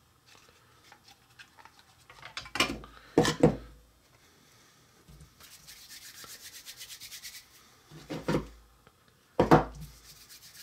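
Hands working plastic Play-Doh toy pieces on a tabletop while Play-Doh is packed into a My Little Pony figure's hair extruder: a pair of loud thumps a few seconds in and another pair near the end, with a fast scratchy rubbing for about two seconds in between.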